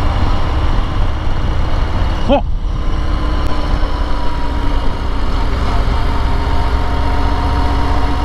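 Harley-Davidson Road Glide ST's V-twin engine running as the bike rides along, a deep low rumble under the rush of wind.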